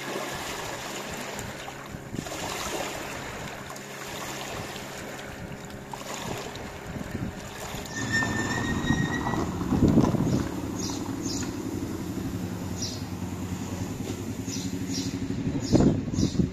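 Small waves washing over stones at the water's edge. About halfway through, a car engine idling steadily takes over, with a few short high chirps above it.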